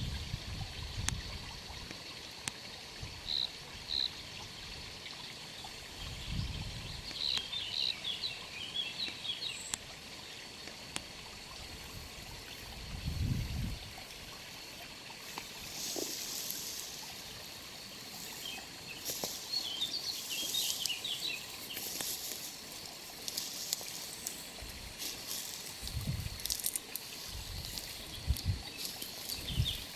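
Outdoor natural ambience: a steady hiss with short clusters of high chirps, likely small birds, now and then, and a few low rumbles of wind on the microphone.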